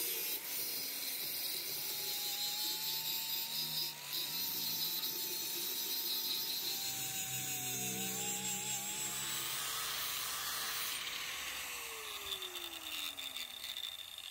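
Electric angle grinder working a steel axe head, its motor whine wavering as the disc bites, stripping rust down to bright metal. Near the end it is switched off and winds down, its pitch falling.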